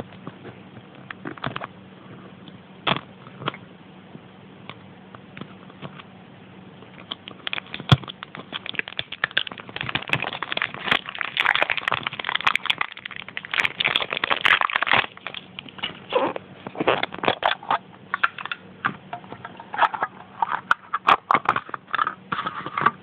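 Packaging crinkling and crackling as a Smurfs pudding is unwrapped and opened by hand. It starts as scattered clicks and turns into dense, irregular crackling for most of the second half.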